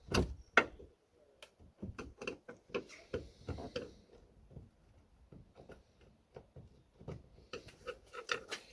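Flathead screwdriver clicking and knocking against the metal ball-joint ends of boot-lid gas struts as they are prised off, in irregular ticks with two sharper knocks in the first second.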